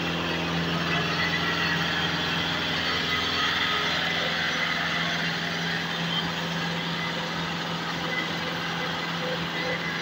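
An engine idling steadily: a constant low hum under general street noise.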